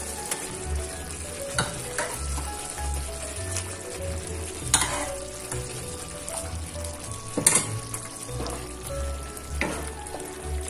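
Thick pomegranate-and-jaggery masala bubbling and sizzling in a metal kadai as chunks of cooked pumpkin are stirred in with a wooden spatula. The spatula knocks against the pan a few times, the loudest about two-thirds of the way through.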